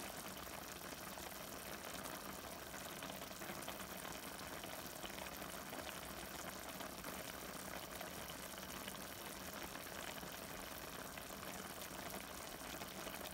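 Chicken adobo sauce boiling steadily around chicken pieces in a stainless steel pan, an even, fine bubbling.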